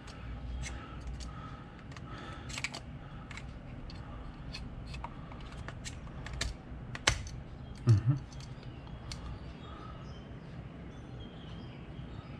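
Small plastic clicks and taps of a GoPro Hero13 Black's battery and side battery door being handled, scattered irregularly, with one sharper click about seven seconds in.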